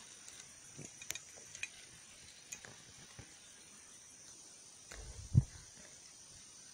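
Faint, steady chirring of insects, crickets, at a quiet pond bank, with scattered small clicks. A single dull thump comes about five seconds in.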